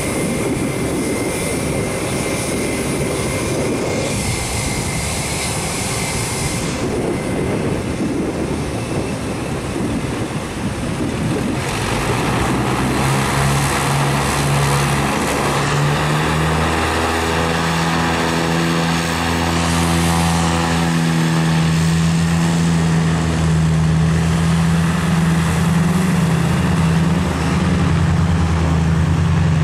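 Cape Air Cessna 402C's twin piston engines running on the runway: a rough, uneven sound that about twelve seconds in settles into a steady, louder propeller-engine drone as power comes up.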